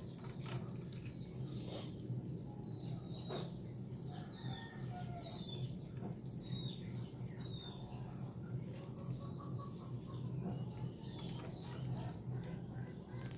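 Faint short bird chirps, scattered mostly through the middle, over a steady low hum.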